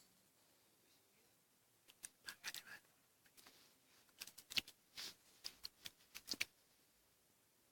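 A sleeping dog stirring in a bad dream, giving a quick string of about fifteen short clicks and rustles over four seconds, beginning about two seconds in and stopping abruptly.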